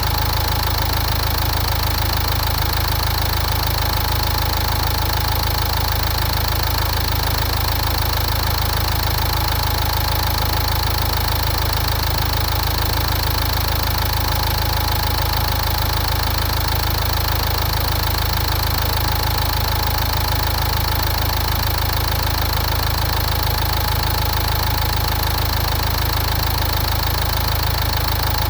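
Car engine idling steadily, kept running for a head gasket combustion-leak test.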